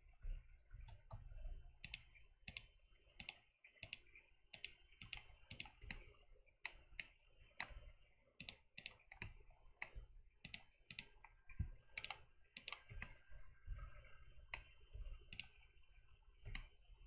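Faint, irregular clicking of a computer mouse and keyboard, a few clicks a second with short gaps.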